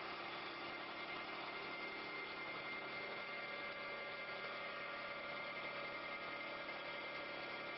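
CNC wood lathe running, a steady machine hum with a constant high whine.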